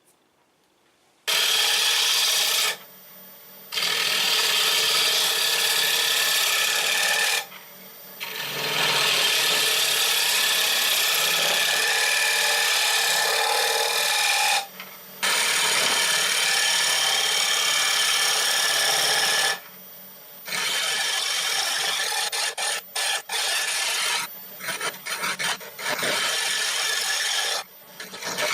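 Turning tool cutting into an oak blank spinning on a wood lathe: a loud rasping hiss of shavings coming off in long passes, broken by short pauses as the tool lifts. It starts after about a second of quiet, and near the end the passes turn short and choppy.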